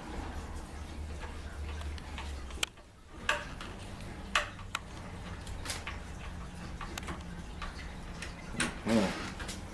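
Phillips screwdriver driving screws into a new door knob's hardware: scattered sharp metal clicks and ticks at uneven intervals, with a short squeak near the end, over a low steady hum.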